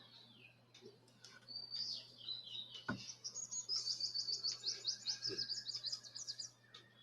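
Bird chirping, building into a fast run of short, repeated high notes for about three seconds in the middle, over a steady low hum, with a couple of faint knocks.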